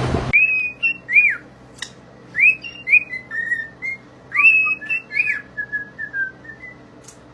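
A string of about a dozen short whistled notes, many sliding up or down in pitch, that stops near the end.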